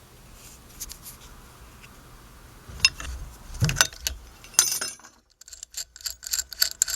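Metal clinks and rattles of a steel nut and lock washer being unscrewed off a bolt: a few sharp clicks about three to five seconds in, then a run of small quick ticks.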